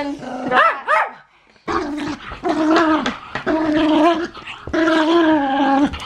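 Small curly-haired dog barking loudly over and over, demanding to be played with, with a short pause just over a second in.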